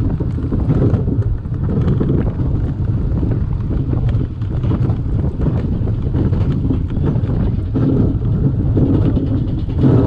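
Roller coaster train rumbling and rattling along its track, with wind buffeting the microphone.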